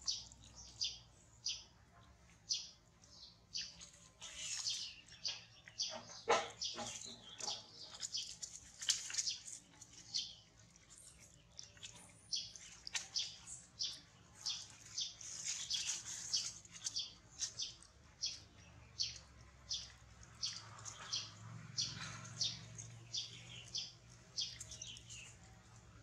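Small birds chirping: short, high chirps repeating two or three times a second, with a few sharper clicks about six seconds in.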